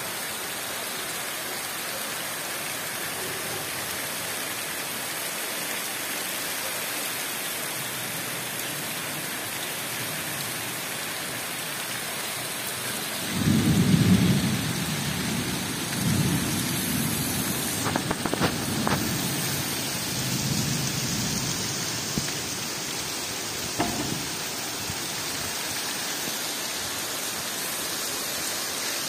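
Heavy tropical downpour hissing steadily on the jungle. About halfway through, a low roll of thunder rises, is loudest at first and rumbles on in waves for several seconds.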